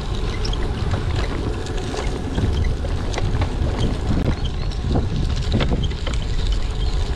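Wind buffeting the microphone of a handlebar-mounted camera on a moving road bike, over a steady low rumble of the tyres on a rough path, with scattered small knocks and rattles.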